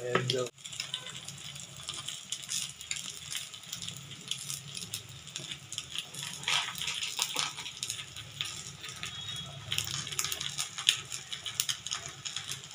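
Two eggs frying on a flat tawa over a gas stove, with a steady scatter of small crackles and pops from the hot pan.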